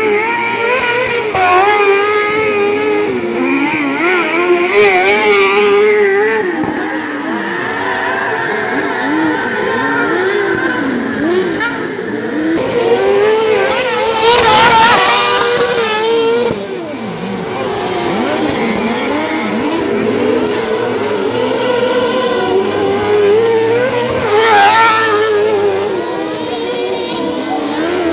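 Kartcross buggies' motorcycle engines racing on a dirt track, several at once, revving up and down through gear changes. One passes close and loud about halfway through, and another near the end.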